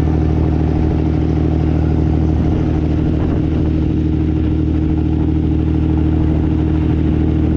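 Fishing boat's engine running at a steady pitch, a constant low drone with a hiss of wind and water over it.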